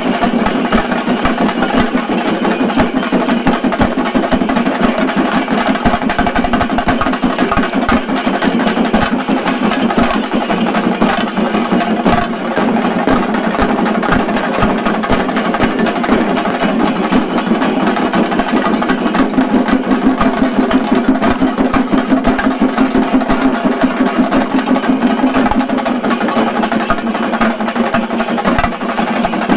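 Shinkari melam ensemble of chenda drums beaten with sticks: loud, fast, dense drumming that runs on without a break.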